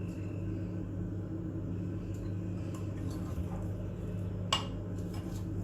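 Kitchen utensils and dishes clinking: a few light clinks and one sharper clink about four and a half seconds in, over a steady low hum.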